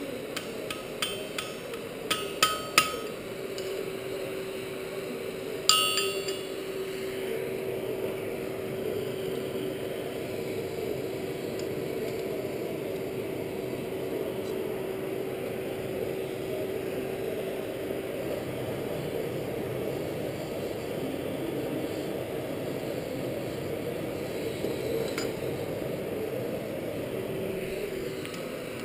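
A few sharp hammer blows on the anvil, then one loud ringing strike of steel on the anvil about six seconds in. After that comes a steady rushing noise with a low hum, the coal forge's blower running while the workpiece reheats in the fire.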